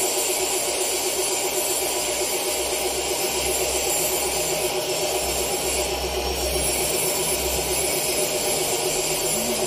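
Oxy-fuel gas welding torch flame hissing steadily while heating cast aluminium for welding, over a steady machine hum.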